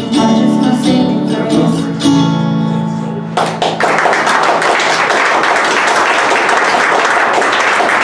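Acoustic guitar chords ringing out at the end of a song, then, about three and a half seconds in, an audience breaks into applause that carries on steadily.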